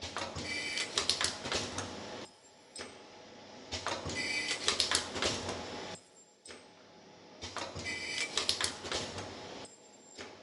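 YFM-109MCA-H automatic metal zipper film welding machine running its cycle. About every 3.7 s it gives roughly two seconds of rapid mechanical clicking and clattering with a steady high whine, then runs more quietly for a second or so before the next stroke, three times over.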